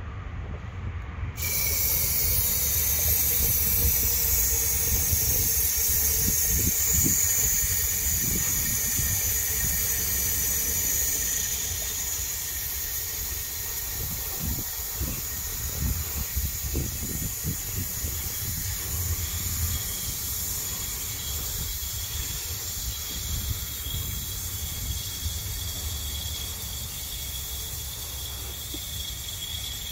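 Aerosol can of undercoating spray hissing steadily as it is sprayed into a car's rear frame rail, starting about a second and a half in.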